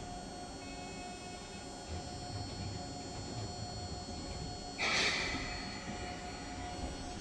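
Hakone Tozan Railway electric train at a station platform, humming steadily over a low rumble as the near train begins to move off, with a short, loud hiss about five seconds in.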